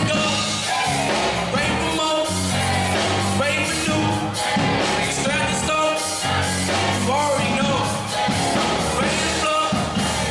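Background music: an upbeat song with vocals and a steady beat.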